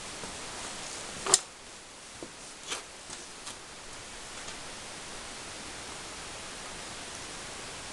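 Steady hiss of background noise, with one sharp click about a second and a half in and a few fainter clicks over the next two seconds.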